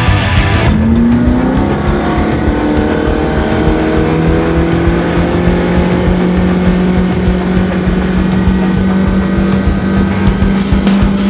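Yamaha F115 four-cylinder four-stroke outboard accelerating, its pitch climbing for a couple of seconds, then running at steady cruising revs with water rushing past the hull.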